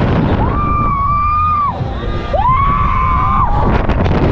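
Riders on a giant pendulum ride screaming twice, each a long held scream that rises in and drops off, over the low rumble of wind buffeting the microphone as the ride swings.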